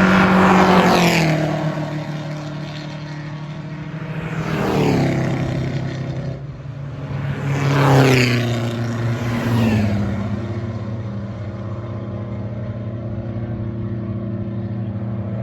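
Vintage and pre-war cars passing one after another at speed, each engine note dropping in pitch as it goes by; about four pass, the loudest near the start and about eight seconds in, over a steady drone of other engines.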